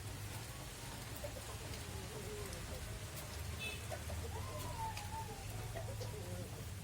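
Birds calling: a few short wavering calls in the middle, over a steady low hum.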